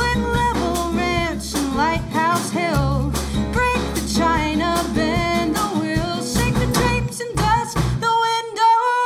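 A woman singing a song with her own acoustic guitar, backed by a small band of vibraphone, drum kit and bass. Near the end the bass drops out beneath a long held sung note.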